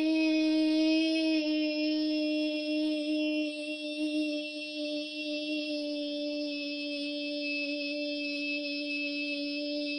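A boy's voice holding one long sung 'boooy' note of the 'Yeah boy' meme, held for endurance. The note sinks very slightly in pitch as it goes on.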